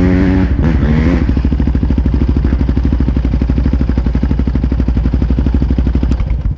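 Sport ATV engine idling steadily in a fast, even run of firing pulses, with a brief voice over it in the first second.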